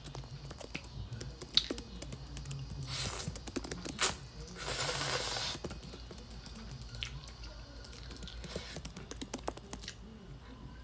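Close-up eating sounds of noodles being eaten with a fork: small clicks of the fork against the plate and wet mouth noises, with two breathy rushes of air at the mouth a little after the middle, and one sharp clink of the fork on the plate about four seconds in.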